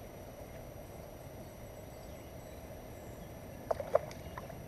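A fish hooked on a hand line splashes at the water's surface close to the bank, with two quick sharp splashes near the end over a faint steady background.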